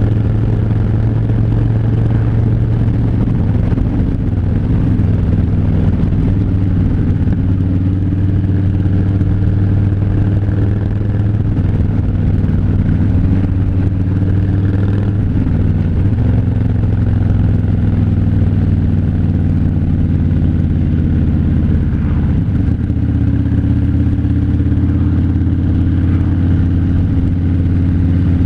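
Harley-Davidson V-twin motorcycle engine running at a steady cruise, its note shifting for a moment about halfway through.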